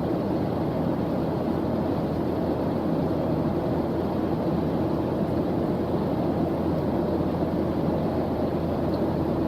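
Steady white-noise background track: an even, deep rushing hiss that holds the same level throughout, with no rhythm or breaks.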